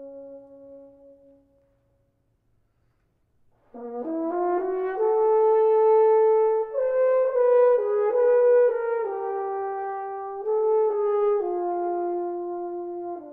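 French horn played in a recital: a held low note fades away, and after about two seconds of silence a new, loud phrase begins. The phrase moves through a series of sustained notes and settles on a lower held note near the end.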